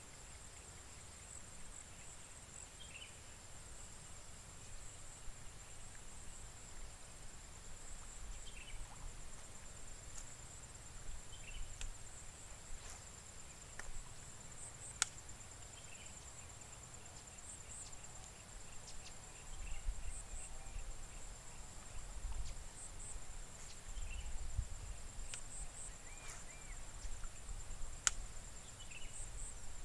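Steady high-pitched insect drone, with short bird chirps every few seconds and two sharp clicks about halfway through and near the end. Wind rumbles on the microphone in the second half.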